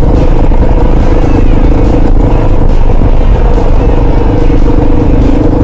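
Kawasaki KLR650's single-cylinder four-stroke engine running at a steady speed as the motorcycle rides a bumpy dirt road, with a continuous rush of noise and light rattling over the bumps.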